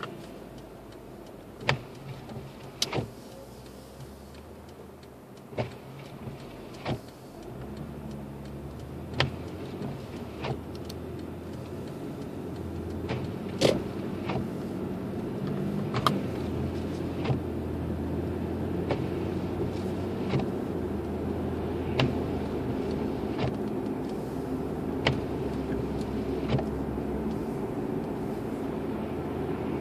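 Cabin noise of a 2006 Lexus IS 250 AWD being driven: a low engine hum and road noise that grow louder about eight seconds in. Sharp clicks come through every second and a half or so.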